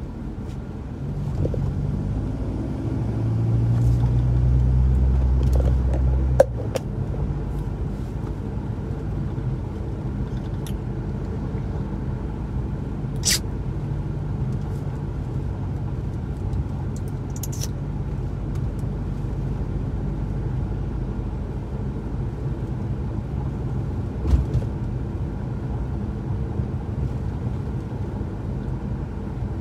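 Car driving, heard from inside the cabin: a steady low rumble of engine and road noise that swells louder for a few seconds near the start. A few sharp clicks and a short thump come through along the way.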